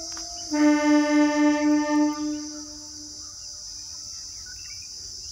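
Indian electric train's horn: a quieter steady note, then about half a second in a loud blast with a fast wavering, dying away by about three seconds in. Steady chirring of crickets underneath.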